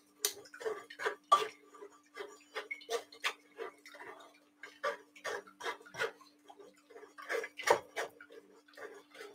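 Metal spoon scraping and pressing wet fruit pulp against a stainless steel mesh strainer in quick repeated strokes, about two to three a second, squeezing the juice out of the pulp.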